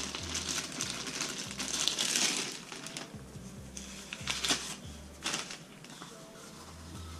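Clear plastic bag crinkling and rustling as a scope cover is unwrapped and handled, with sharper crackles here and there.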